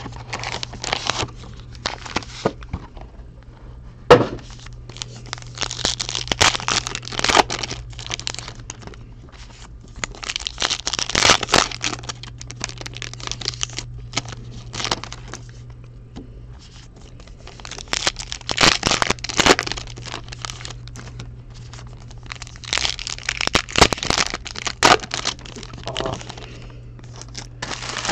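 Crinkling, tearing and rustling of card-pack wrappers and plastic card sleeves as trading cards are opened and handled, in irregular bursts with sharp clicks, one loud one about four seconds in, over a steady low hum.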